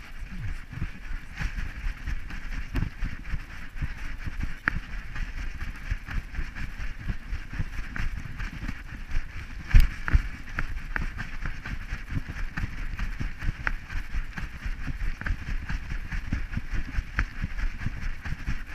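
Rhythmic bumping and rubbing picked up by a GoPro in its housing on a trotting dog's harness, with wind on the microphone and scattered sharp clicks. A heavy knock comes about ten seconds in.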